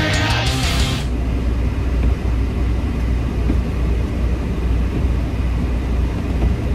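Heavy rock music cuts off about a second in, leaving a semi-truck's diesel engine running, heard from inside the cab as a steady low rumble.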